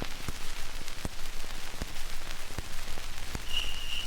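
Surface noise of an old record playing before the song: a steady hiss with a sharp click repeating about every three-quarters of a second. A high, steady note comes in near the end as the music begins.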